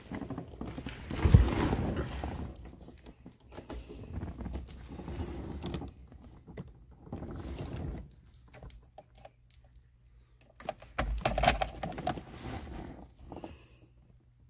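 Keys jangling and knocking in several bursts, the loudest a thump about a second in, over the steady low hum of the 1981 DeLorean DMC-12's V6 engine running at a fast cold idle.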